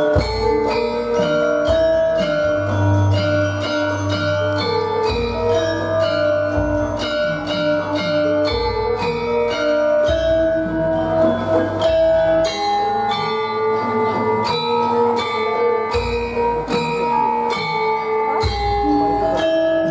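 Javanese gamelan ensemble playing: bronze bonang kettle gongs and other struck bronze keys sound a quick, even stream of ringing notes, with deep gong tones ringing underneath.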